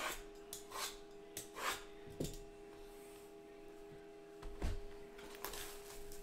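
Cardboard Donruss baseball hobby boxes sliding and rubbing against each other as they are handled and lifted off a stack, with a dull thump about four and a half seconds in as one is set down. A faint steady hum sits underneath.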